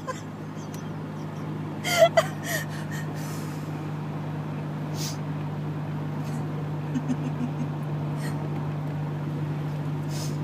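A woman's short, high-pitched burst of laughter set off by her hiccups, about two seconds in. After it there is only the steady drone of a car's interior on the move.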